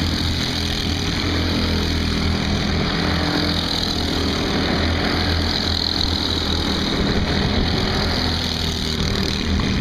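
Go-kart engines running on the track: a steady, continuous buzz from several karts at once.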